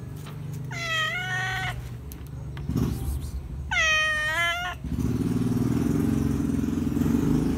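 Tabby-and-white cat meowing twice, two drawn-out calls that rise at their start, about one and four seconds in. A low steady drone sits beneath the calls and gets louder after the second meow.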